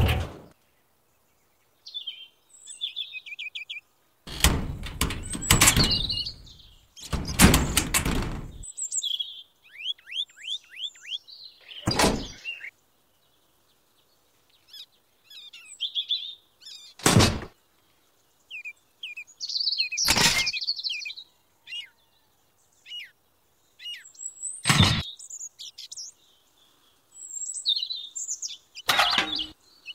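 Small birds chirping and trilling throughout, broken by handling noises of small model pieces: two longer rustling scrapes early on, then five single sharp knocks spaced a few seconds apart.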